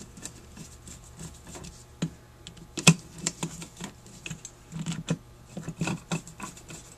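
Irregular small clicks and taps of hands handling a Rochester 4GC carburetor while starting the screws that join its throttle body to the float bowl, with one sharper click about three seconds in.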